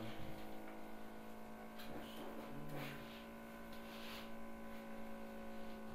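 Steady electrical mains hum with several fixed tones, and a few faint short soft noises about two and four seconds in.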